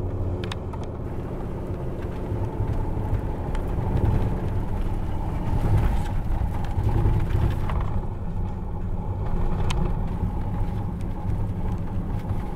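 Pickup truck driving along a dirt road: steady engine drone with road noise, a few light clicks and knocks over it.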